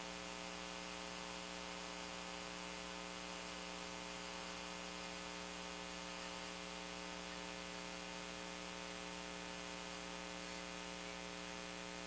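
Steady electrical mains hum with a buzzy stack of overtones, unchanging in level throughout.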